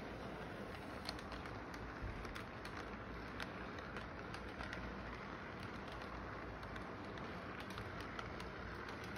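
Model train cars rolling steadily along the track: a continuous rumble with many small irregular clicks from the wheels running over the rails.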